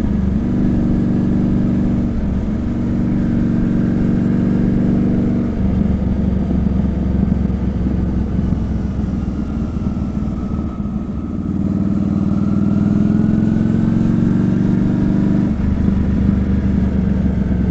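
Honda Shadow 400 V-twin running through aftermarket Screamin' Eagle silencers while being ridden, the exhaust note changing with throttle and gear a few times, with a brief easing off about eleven seconds in.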